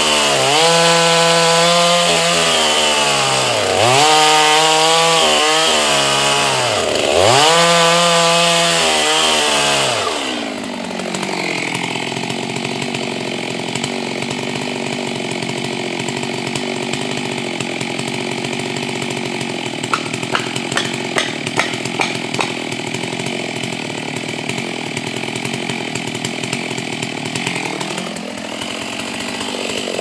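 Two-stroke chainsaw running at full throttle, its pitch sagging and recovering three times as it works in the cut. About ten seconds in it drops to a steady idle with a few light clicks, then revs back up near the end.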